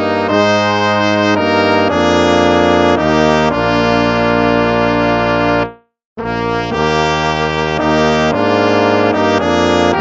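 Instrumental background music of held chords that change every second or so, broken by a brief silence about six seconds in.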